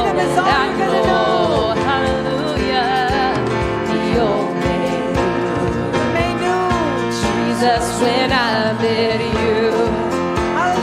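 A live worship band playing a contemporary Christian song with guitar and drums, with a wavering melodic line over the band and no sung words, between a chorus and the next verse.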